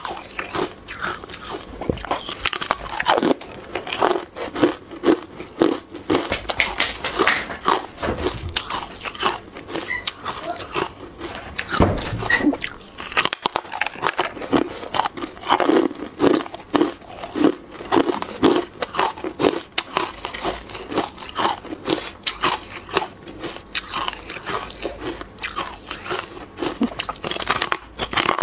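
Bites and chewing of porous white carbonated ice, heard as crisp crunches in quick, irregular succession, several a second.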